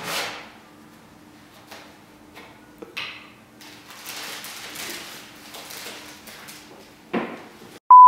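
Plastic carrier bag rustling and crinkling, with light clicks from handling a plastic milk bottle. A steady censor bleep starts right at the end.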